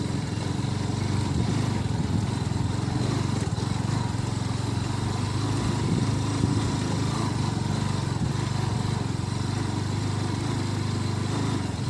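Motorcycle engine running steadily at an even pace while riding on a rough dirt road.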